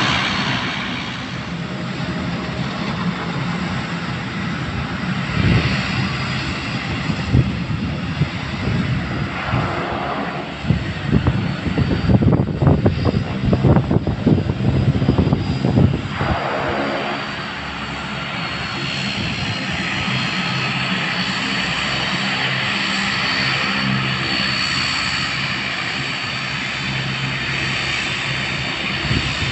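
Philippine Airlines Bombardier Dash 8 Q400's Pratt & Whitney PW150A turboprops running at taxi power, with a steady low propeller hum and a thin, high turbine whine that grows clearer in the second half. About ten seconds in, several seconds of loud, gusty buffeting rumble over it, as the aircraft turns around on the runway.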